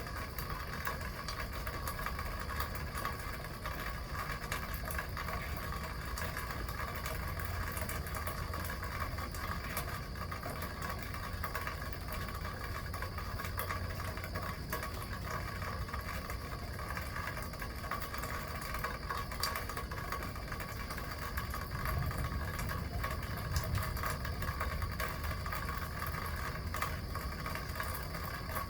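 Steady rain with water splashing loudly from a rain gutter, over a low rumble that swells briefly about 22 seconds in.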